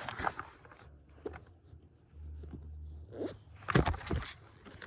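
A bag's zipper being pulled open and the bag rustled and handled, with a couple of sharp knocks near the end.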